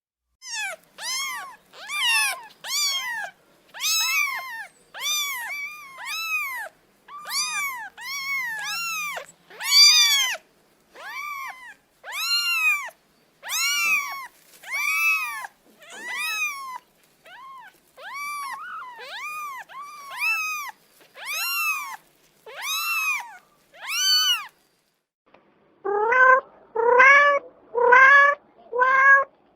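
A cat meowing over and over, about one high-pitched meow a second, each call rising and falling in pitch. After a short pause near the end, a lower-voiced cat meows in quicker succession.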